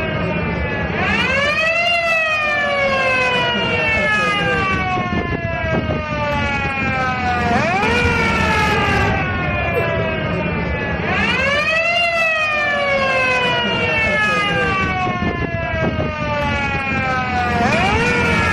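Vintage 1960 ambulance siren sounding in a repeating cycle: the pitch sweeps up quickly, then falls slowly over several seconds, four times in all. A steady low rumble runs underneath.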